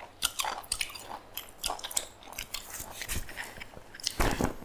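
A person biting and chewing food close to the microphone, with irregular short mouth clicks and a louder thump near the end.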